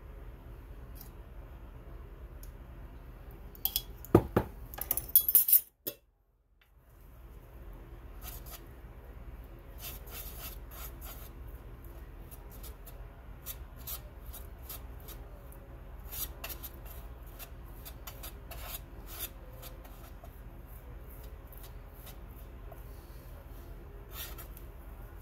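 Metal palette knife scraping and clicking against a palette plate as Prussian blue pigment is worked into linseed oil, over a low steady hum. A cluster of louder metal clinks comes about four seconds in, followed by a brief drop to near silence.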